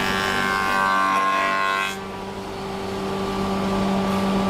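Spindle moulder running with a steady machine whine as a board is fed past its cutter, cutting a saw-tooth glue-joint profile along the edge. The sound is louder and brighter for the first two seconds, then drops to a quieter hum.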